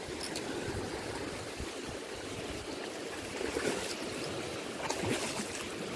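Rushing, churning water, with a few splashes between about three and a half and five seconds in as a hooked striped bass thrashes at the surface.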